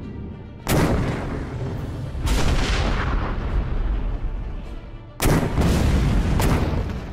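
Field cannon firing cannonballs, several booms in a row: loud sudden blasts about two-thirds of a second in and again just past five seconds, with smaller hits between, each trailing off in a long rumble.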